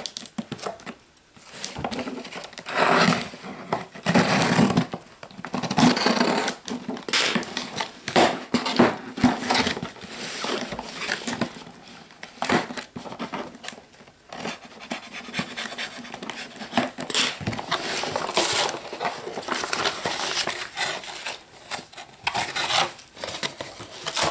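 A mail package being opened and unpacked by hand: irregular bursts of tearing, rustling and crinkling packaging, with scattered small knocks.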